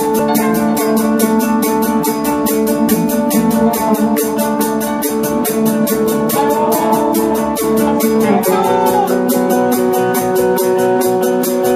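Live rock band playing: guitars over drums, with a steady, quick hi-hat beat. The guitar chord changes about eight seconds in.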